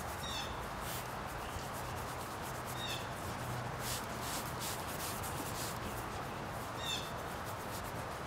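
Paint being rubbed across a large painting board, a soft steady scrubbing over background noise. Three short high chirps sound over it: one near the start, one about three seconds in and one about seven seconds in.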